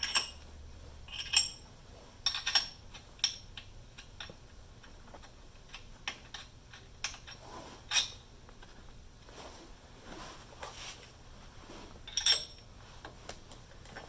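Steel tapered washers clinking as they are handled and set onto the steering arm studs: a string of sharp metallic clicks with a short ring, spaced irregularly, the loudest just over a second in and near the end.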